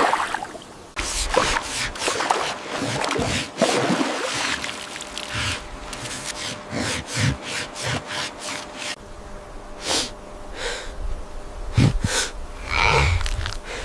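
An animal snorting and breathing hard in a run of short, breathy huffs, with a couple of low thuds near the end.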